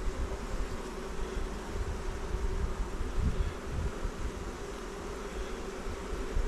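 Honeybees humming steadily around an open hive as its brood frames are inspected, a calm colony, with irregular low rumbles underneath.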